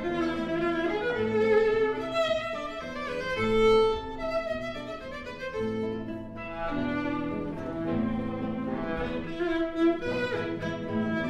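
Violin and classical guitar playing a duet: the violin carries a melody of held, bowed notes over plucked guitar accompaniment.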